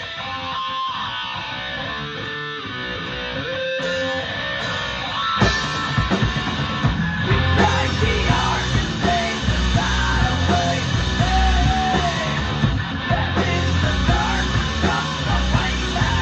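Rock band playing live on electric guitar, electric bass and drum kit. It opens with a quieter guitar-led passage, then about five seconds in the full band comes in loud with heavy bass and a driving drum beat.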